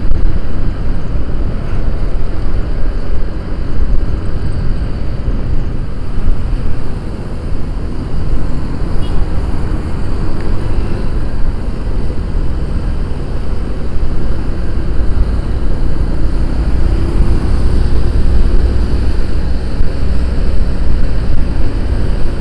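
Wind buffeting and road noise on the microphone of a rider on an automatic scooter moving through traffic, a loud steady rumble that rises and falls, with the engine's hum faintly underneath.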